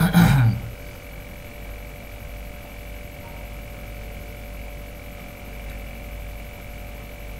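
Steady electrical mains hum on the recording, a low buzz with a few fixed higher tones above it. A brief sound falling in pitch comes at the very start.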